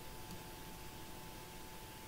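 Quiet room tone: a steady low hiss with a faint steady whine under it.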